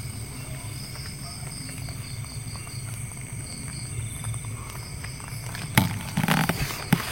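Night forest ambience: insects chirping in a pulsing pattern over a steady low rumble. About six seconds in come two sharp snaps with a short rustle between them.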